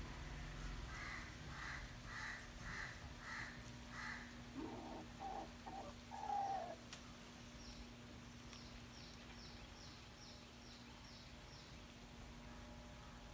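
Birds calling: a run of about six evenly spaced calls in the first few seconds, a lower call that falls in pitch about six seconds in, which is the loudest sound, then a fast series of short, high, descending notes. A steady low hum runs underneath.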